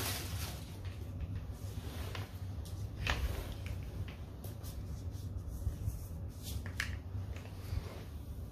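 Rustling plastic packaging and scattered light clicks as a clear plastic shoe is unwrapped and handled, over a low steady hum.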